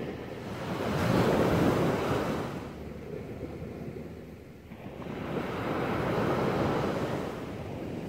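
Small waves breaking on a sandy beach and washing up the shore. Two waves swell and fade, the first about a second in and the second about five seconds in.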